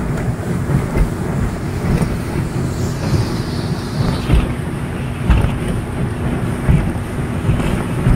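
Motorboat under way: a steady engine drone under the rush of wind and water, with wind buffeting the microphone in irregular low thumps.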